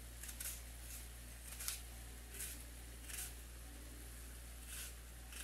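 Kitchen knife slicing through an onion held in the hand: a handful of short, crisp cuts at irregular intervals over a low steady hum.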